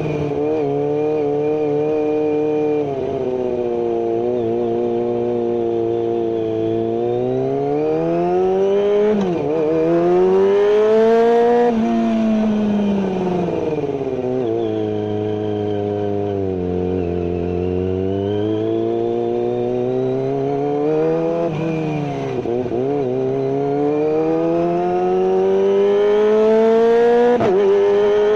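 Kawasaki ZX-25R's 250 cc inline-four running at high revs through a GPR carbon full-system exhaust with no dB killer. The engine note climbs and falls repeatedly as the throttle is worked, with three brief sharp dips in pitch.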